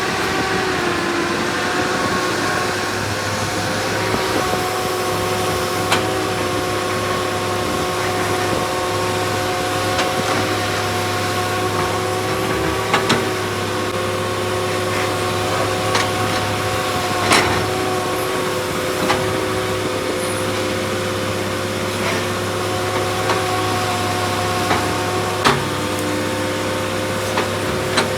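Excavator engine running steadily with a low hum and several steady whining tones, with a few sharp clanks scattered through.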